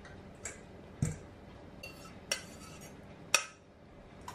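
Stainless-steel pot, metal spoon and mesh strainer clinking together about four times as the egg mixture is moved over for sieving. The loudest clink comes a little past three seconds in.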